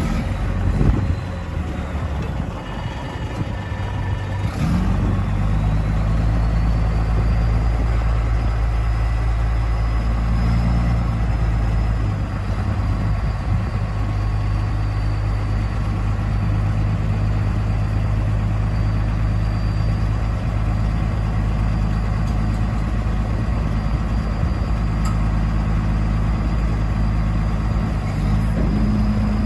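The JCB 718 articulated dump truck's diesel engine runs steadily while the hydraulics tip the dump body up. The engine picks up about five seconds in and stays there, with a faint high whine above it, and its note rises again near the end.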